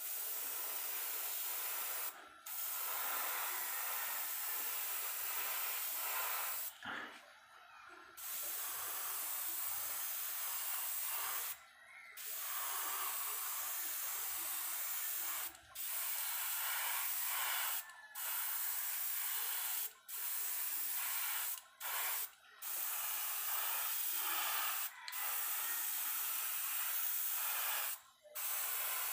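Airbrush spraying thinned acrylic paint, a steady hiss in repeated passes of one to four seconds with about ten brief gaps between them, building up coats on metal micro jig lures.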